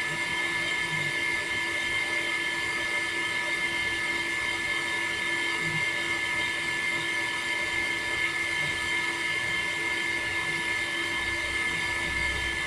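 Electric water pump motor running steadily, a constant whine with a high, unwavering pitch over a mechanical hum.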